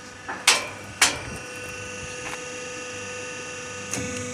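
Two sharp metallic knocks about half a second apart from a roll forming machine, then a steady machine hum with a thin high whine, and a lighter knock near the end.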